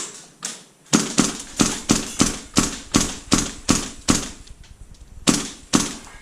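Airsoft guns firing single shots in quick succession: about ten sharp cracks at roughly three a second, then a short pause and three more near the end.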